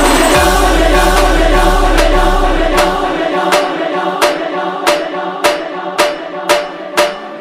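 Background devotional music with voices singing. About three seconds in, the bass drops out and a sharp percussion beat carries on over a held tone, its strokes coming gradually faster.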